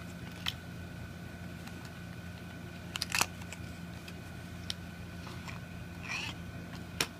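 Small cardboard box of heavy-duty staples being handled and opened by hand: light clicks and taps, a louder cluster of knocks about three seconds in, a short scrape about six seconds in and a sharp tick near the end.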